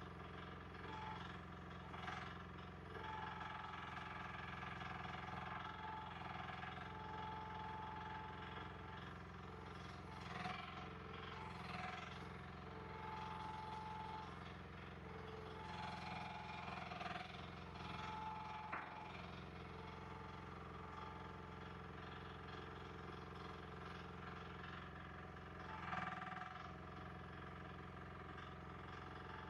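Compact earthmoving machine's engine running steadily, with a higher whine that comes and goes and a few knocks.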